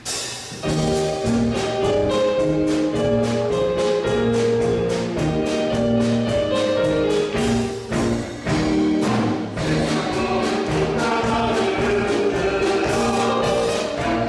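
Church praise band playing a worship song with a steady beat and held chords, with voices singing over it; the music starts about half a second in.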